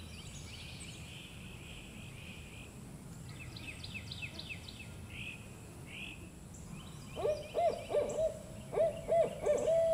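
Barred owl hooting: a rhythmic run of loud hoots from about seven seconds in, turning into a falling drawn-out note at the end. Before it, small birds chatter and trill high-pitched.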